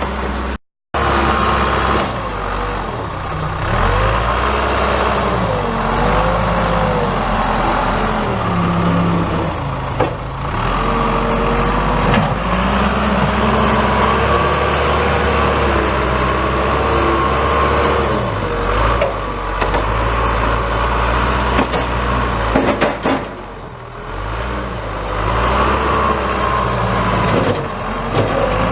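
Vehicle engine running steadily, its pitch rising and falling as it works or moves.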